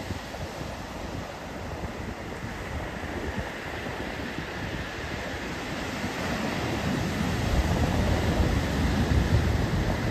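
Ocean surf washing onto a sandy beach, a steady rushing noise, with wind buffeting the microphone. A low rumble grows louder over the last few seconds.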